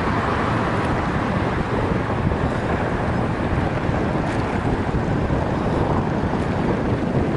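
Steady wind noise on a bicycle-mounted Sony Action Camera's microphone while riding, a constant deep rush with no break.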